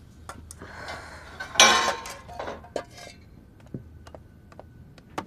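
Metal spoons and stainless steel pots clinking and clattering, with a louder rushing clatter about a second and a half in.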